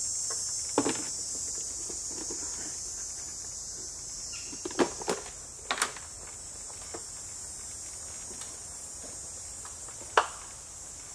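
A steady high-pitched chorus of insects, with several short knocks and clicks over it, in a cluster around five to six seconds in and a sharper one near the end.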